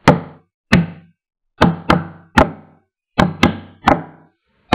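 A series of about eight sharp percussive hits, each ringing out briefly, in an uneven rhythm of single strikes and quick pairs.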